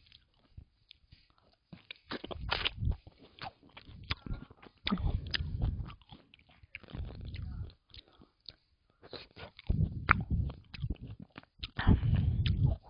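Close-miked eating of juicy hwanggeumhyang citrus segments: bites and wet chewing in several short bouts, with sharp mouth clicks between them.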